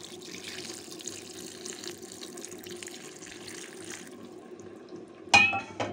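Broth poured into a pot of stuffed cabbage rolls: a steady splashing pour that stops suddenly about four seconds in. A little over a second later comes a short, loud clank.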